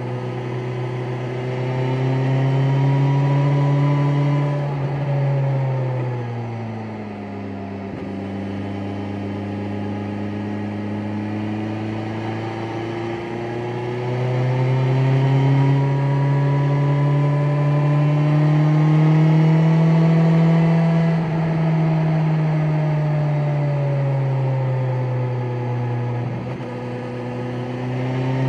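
BMW S1000XR's inline-four engine pulling in sixth gear at low rpm, running smoothly. Its note drops about five seconds in as the bike slows, stays low for several seconds, and climbs steadily from about thirteen seconds. It eases off past twenty seconds and starts climbing again near the end.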